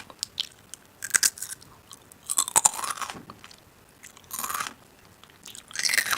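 Crunchy food being bitten and chewed close to the microphone, with four loud crunches and small mouth clicks between them.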